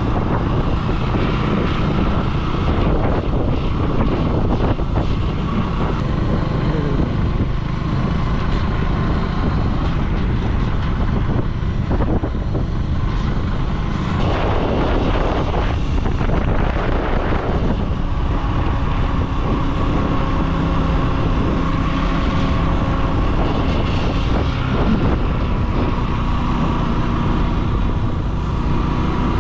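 KTM Duke 200 motorcycle's single-cylinder engine running while the bike is ridden on the open road, mixed with wind buffeting the microphone.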